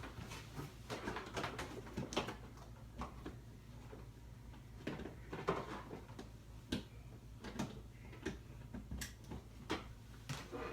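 Scattered light knocks, clicks and rustles of objects being handled in a small room.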